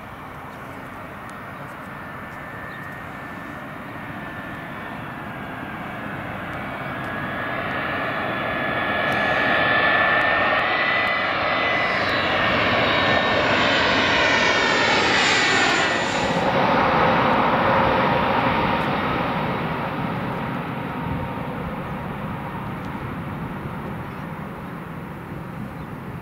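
Airbus A320-214's CFM56 jet engines on final approach, growing louder as the airliner comes nearer. Its engine whine falls in pitch as it passes overhead about 15 seconds in. The noise then fades as it flies on toward the runway.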